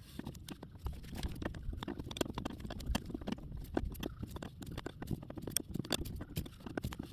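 Irregular metallic clicks and taps, several a second, as a wrench works a brake line fitting loose from the master cylinder.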